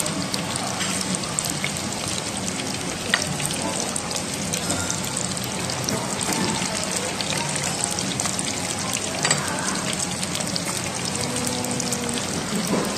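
Skewers of meat deep-frying in the hot oil of a tabletop kushiage fryer: a steady, dense crackle, with a single click about three seconds in.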